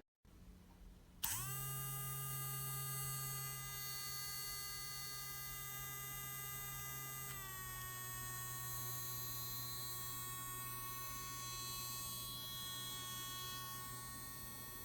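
Small electric pet nail grinder motor switched on, spinning up within a moment to a steady whine; about six seconds later its pitch steps down a little and holds there.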